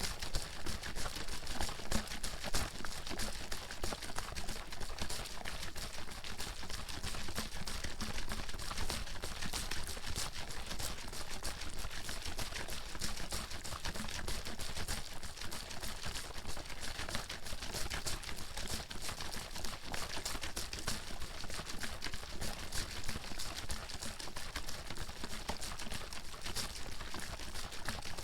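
Water bottle being shaken hard and without a break, the water sloshing and slapping inside in a rapid, even clatter.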